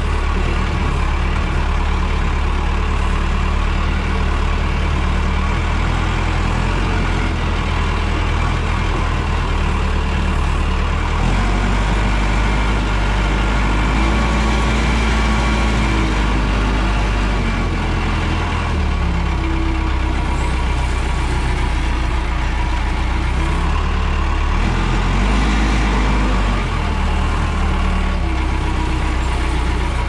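Case 580 Super L backhoe's diesel engine running steadily as the machine drives along in gear, heard from the operator's seat. The engine note changes several times along the way.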